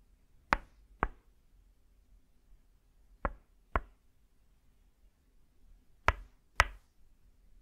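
Tok sen massage: a wooden mallet striking a wooden peg held against the body, in three pairs of sharp knocks. The two strikes of each pair come about half a second apart, and the pairs come about two and a half seconds apart.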